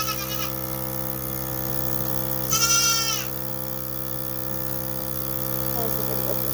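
Goat bleating: the end of one bleat at the start, then a second short, high bleat about two and a half seconds in. Beneath it the steady hum of an automatic goat milker running.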